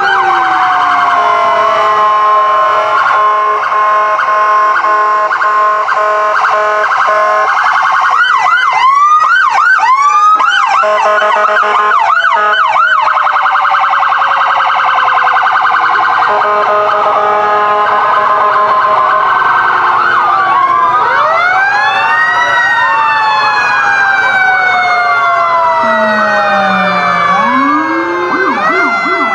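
Sirens of several parade fire trucks and emergency vehicles sounding at once: overlapping wails and rapid yelps, with steady tones in the first several seconds and long falling glides in the last few seconds.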